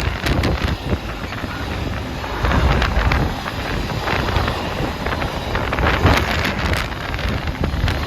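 Freight train passing, its wagons rumbling along the rails with scattered sharp clacks. Wind is buffeting the microphone.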